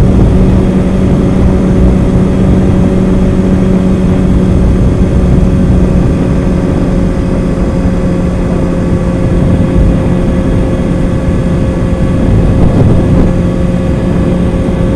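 Kawasaki ZX-6R 636's inline-four engine running at a steady, unchanging pitch while cruising, under loud wind noise buffeting the helmet camera's microphone.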